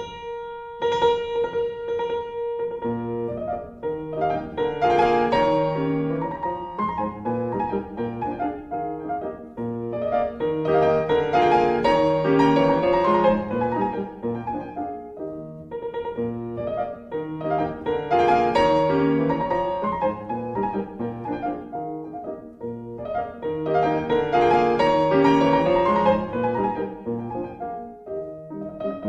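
Background piano music: repeated chords and melody phrases that swell and fade every few seconds.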